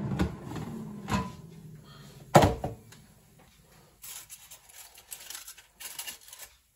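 Air fryer drawer being pulled out mid-cook: the appliance's steady hum cuts off at the start, the drawer and basket slide out with a knock about a second in and a loud thunk about two and a half seconds in. Then faint clicks and scrapes of tongs turning food in the metal basket.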